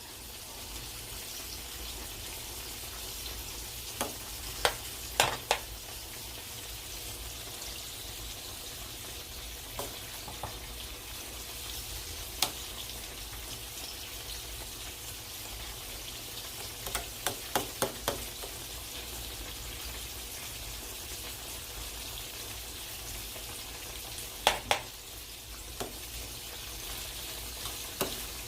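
Steady sizzle of chicken frying in oil, broken by scattered clicks and taps of a spoon against a pot as rice and peas are stirred, including a quick run of them about two-thirds of the way through.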